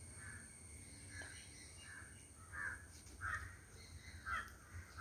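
Crow cawing faintly, a series of short caws about one a second, the later ones louder.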